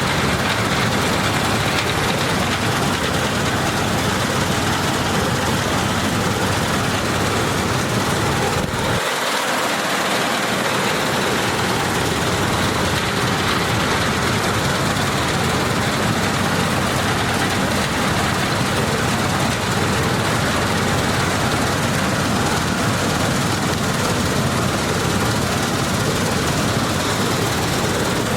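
Combine harvester running steadily, a loud, dense mechanical noise. About nine seconds in the sound changes abruptly, the deep rumble dropping out for a moment before returning.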